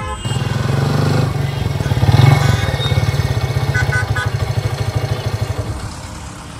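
Motorcycle engine running close by with an even, rapid pulse, loudest about two seconds in, then idling and fading near the end as the bike stops.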